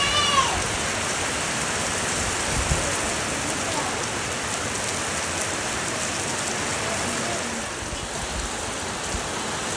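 Steady rain pouring down, an even unbroken hiss.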